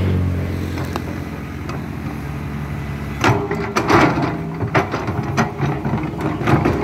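Diesel engine of a LiuGong hydraulic excavator running steadily under load while it digs soil. From about three seconds in, a series of sharp clanks and knocks from the working bucket and arm.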